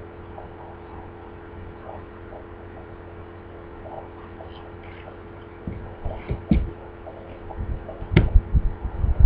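A steady low hum, then from about six seconds in a run of dull thumps and knocks, with one sharp knock near the end, as a person steps and climbs onto a wooden ramp.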